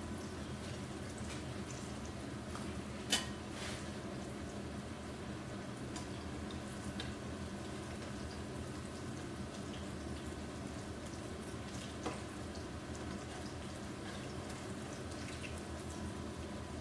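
Hot oil sizzling and bubbling steadily as batter-coated sweet potato slices deep-fry in a pot, with a sharp knock about three seconds in and a fainter one later.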